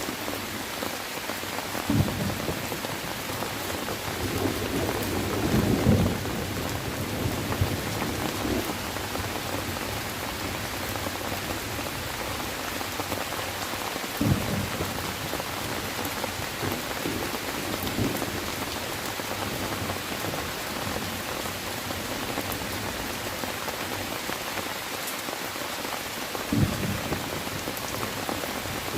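Steady rain falling, with a handful of short, low thunder rumbles: one about two seconds in, a longer one around five to six seconds in, and others further on.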